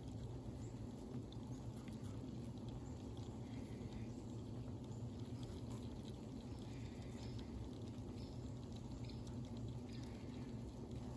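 Steady low hum of a honeybee colony crowding the frame tops of an opened honey super.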